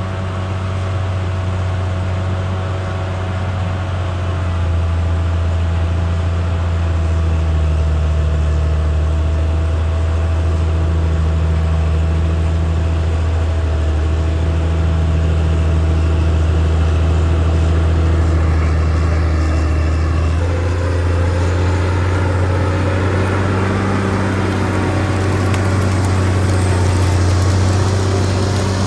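CAT D6R XL bulldozer's diesel engine running steadily with a deep hum, its note shifting slightly about five seconds in and again about twenty seconds in.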